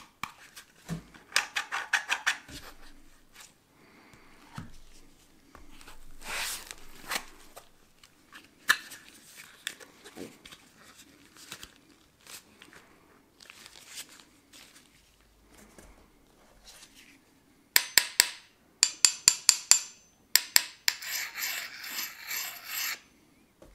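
Gloved hands handling gimbal accessories in a foam-lined hard plastic case: rubbing, scraping and scattered clicks of parts being lifted and set down. Near the end comes a quick run of about eight sharp clicks, then a couple of seconds of rasping scraping.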